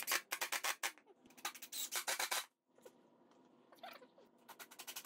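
Cordless impact driver driving a screw into pine boards at low trigger speed: a rapid clicking, about ten clicks a second, in short bursts with brief pauses.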